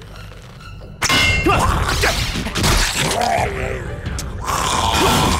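Animated sound effects for a giant robotic scorpion: a sudden loud onset about a second in, then dense metallic clanging with sliding, squealing pitched sounds.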